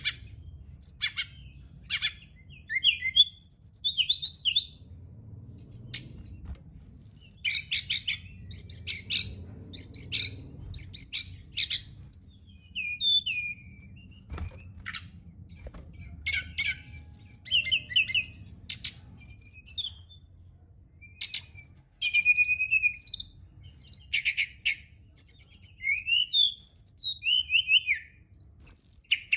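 SRDC (sikatan rimba dada coklat) flycatcher singing: bursts of quick high chirps, trills and down-slurred whistles with short pauses between phrases, used as a lure recording to stir captive birds into song. A faint low hum sits underneath.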